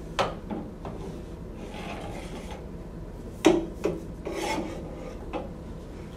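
A ramrod scraping and sliding inside a PVC pipe barrel as it shoves a potato plug down, with a handful of sharp knocks against the pipe. The loudest knock comes about three and a half seconds in, and there are two stretches of rasping rub.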